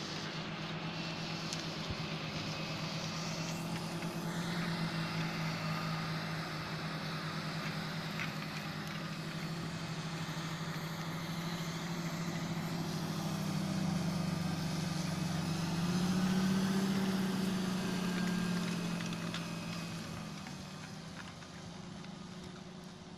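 John Deere 8430 tractor's six-cylinder diesel engine running steadily under load as it pulls a Horsch Joker disc harrow, a steady low drone that swells about two-thirds of the way in and then fades near the end as the tractor draws away.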